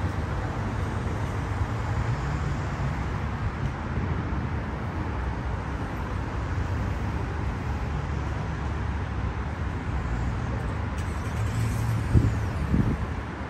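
Steady road traffic noise from a busy multi-lane highway, with a short thump near the end.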